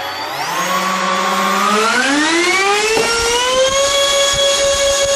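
Electric ducted fans of an E-flite F-15 RC jet spooling up on a static thrust test in stock form, without exhaust cones. The whine climbs in pitch in two steps and settles into a steady high whine about four seconds in.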